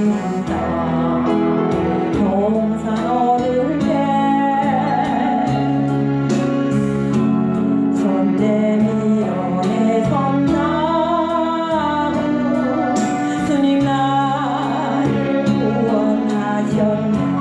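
Gospel praise music: a melody line with vibrato over a steady keyboard and bass backing, with a light beat ticking about twice a second.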